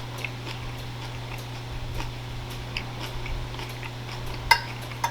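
Close-up eating sounds: small wet clicks and smacks of chewing, with a sharper click about four and a half seconds in and another near the end, over a steady low hum.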